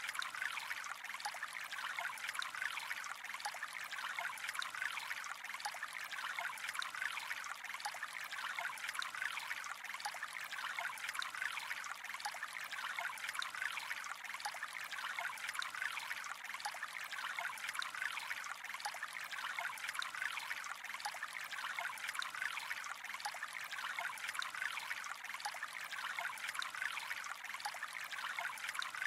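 Gently flowing water, a steady trickle that does not change.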